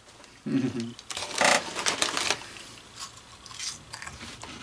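A short hummed "mm", then about a second of dry crinkling and crunching from a snack being eaten (Chester's Fries corn snacks and their bag), with faint clicks after.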